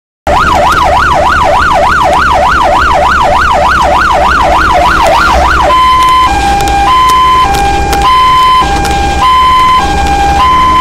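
Fire engine siren on an emergency run, heard from inside the cab. It sweeps up and down fast, about three times a second, then switches about halfway through to a two-tone hi-lo, changing tone about every half second. A low engine drone runs underneath.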